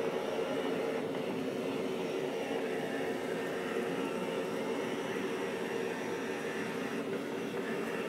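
Qihan Donkey E1 Lite robot vacuum running across carpet: a steady hum from its suction fan and spinning side brushes, with several held tones in it.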